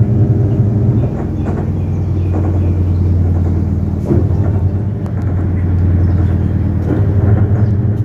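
Top-loading automatic washing machine spinning its drum during the spin stage of the cycle, a steady low hum.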